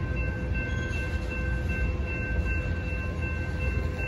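Freight train of tank cars rolling steadily past a grade crossing: a continuous low rumble of wheels on rail, with thin steady high-pitched tones ringing over it.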